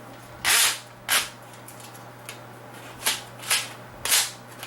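Short clicks and scrapes of plastic drive parts being handled, about five in irregular succession, over a steady low hum.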